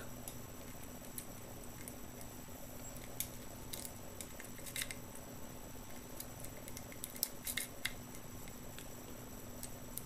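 Light, irregular metallic clicks and scrapes of a single wafer pick working the wafers of a garage door T-handle wafer lock, picking it back to the locked position, with a small cluster of clicks about three quarters of the way through.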